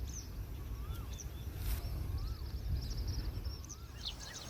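Wild birds calling over a steady low rumble: one bird repeats a rising-and-falling whistled note about every second and a quarter, with scattered high, thin chirps from other birds.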